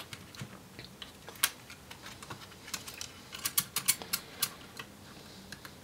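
Small clicks and taps of a 2.5-inch Intel SSD in its metal mounting bracket being handled and set against the open laptop chassis, with one sharper click about a second and a half in and a flurry of small clicks around the four-second mark.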